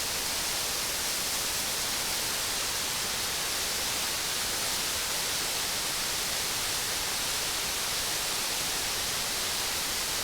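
Tall waterfall rushing steadily: an even, unbroken hiss of falling water.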